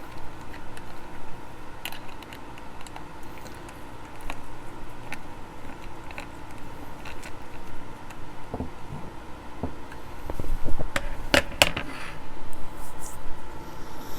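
Scattered small clicks and taps of plastic parts and tiny screws being handled while a multimeter is taken apart, with a quick run of louder clicks near the end, over a steady low hum.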